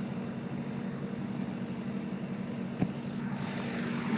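Tractor engine idling steadily, with one sharp click a little under three seconds in.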